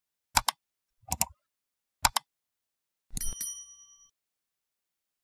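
Subscribe-button animation sound effects: three mouse clicks about a second apart, then a click and a short bell ding that rings for under a second.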